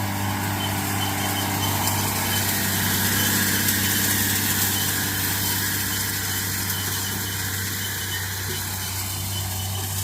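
Tractor engine running steadily while pulling a hay rake: a constant low hum with a broad rushing noise over it.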